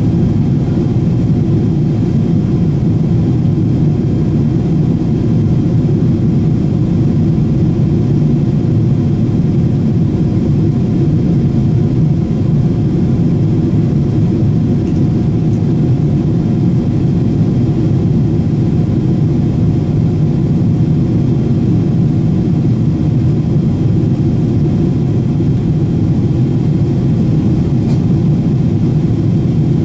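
Steady cabin roar of a Boeing 777-300ER in flight shortly after takeoff, heard from a window seat: engine noise and airflow over the fuselage make a deep, even rumble. A couple of faint steady tones sit above it.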